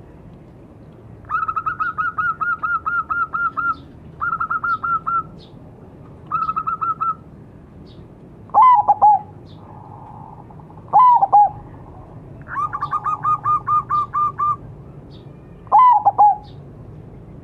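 Zebra dove (perkutut) calling: four runs of rapid, clipped coos at several notes a second, interspersed with three louder single coos that fall in pitch.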